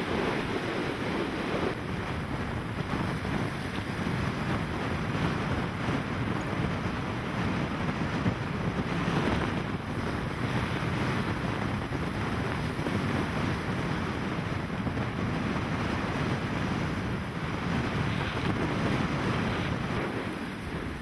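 Strong wind blowing over a rough sea, with waves washing and wind buffeting the microphone, swelling and easing now and then without a break.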